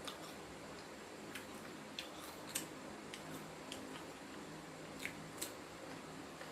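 Faint, irregular crisp crunches of someone chewing crispy panko-breaded fried basa fish, about eight sharp crackles spread across several seconds.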